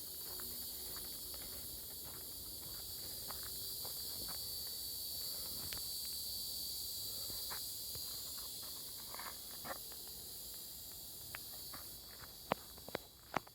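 A steady, high-pitched chorus of insects, swelling and then easing off, with scattered light clicks and a few sharper ticks near the end.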